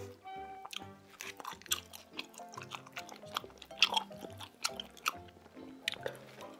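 Background music with a repeating bass line under close-miked chewing and biting of braised pig's trotter meat (jokbal), with many short, sharp clicks and smacks; the loudest come about four seconds in.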